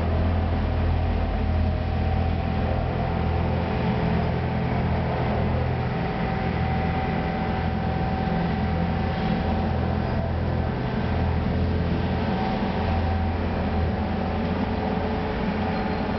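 Diesel engines of heavy asphalt-paving machinery running steadily, a continuous low drone with a faint steady whine above it.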